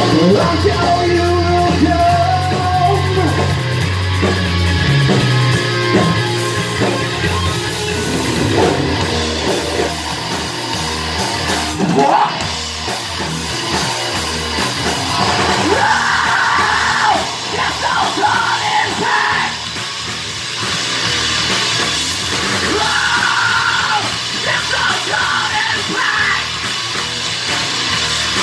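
Live rock band playing loudly: electric guitar, bass guitar and drum kit, with shouted vocals coming in over the second half.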